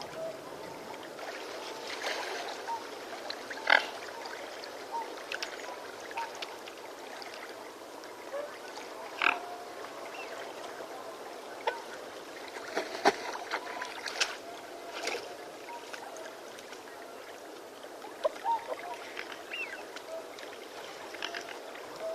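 Birds chirping with scattered short calls and sharp chirps, over a steady background of flowing water.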